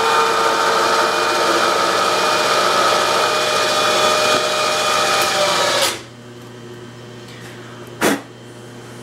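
Bridgeport milling machine's spindle running with a countersink in the chuck, a steady whine with several tones, until it is switched off about six seconds in and the sound drops to a low hum. A single sharp knock comes about two seconds later.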